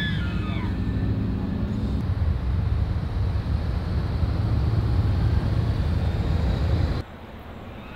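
The falling tail of a bull elk's bugle, a high whistle sliding down in pitch, fades within the first second. It is followed by a steady low rumble that cuts off suddenly near the end.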